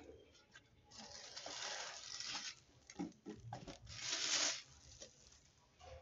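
Clear plastic packaging bag crinkling and rustling as a small mosquito trap lamp is slid out of it, in two stretches with a few light handling clicks between.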